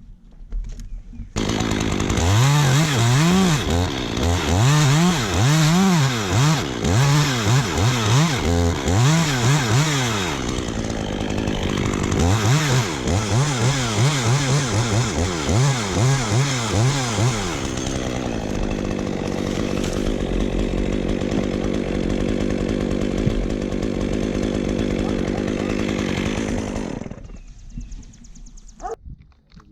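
Chainsaw starting up about a second in, its engine revving up and down over and over, then running at a steadier pitch before it cuts out near the end.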